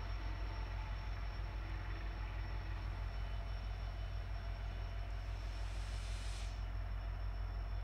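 EMD 16-710 two-stroke V16 diesel engine of a WDP4D locomotive running under load as it pulls a train away, a steady low rumble with an even pulse. A short hiss comes about six seconds in.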